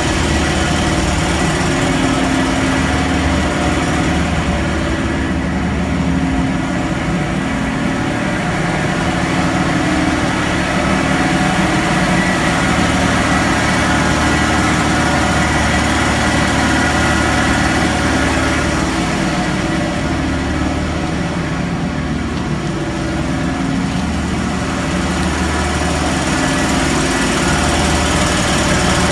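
Fuel truck's engine running steadily, with the PTO driving the fuel pump as it recirculates fuel back into the truck's own tank.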